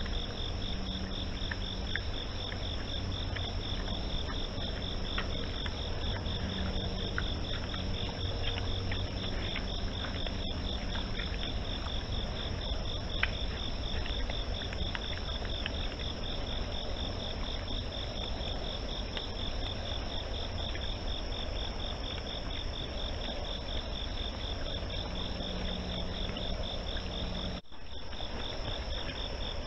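Night insect chorus: crickets chirping in a fast, even pulse with a second steady high trill above it, over a low rumble. It breaks off briefly near the end as the recording jumps to the next clip.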